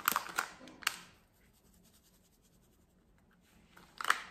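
Paper spice packet crinkling and being tapped as ground spice is shaken out: a quick run of crackly rustles in the first second, then another brief rustle near the end.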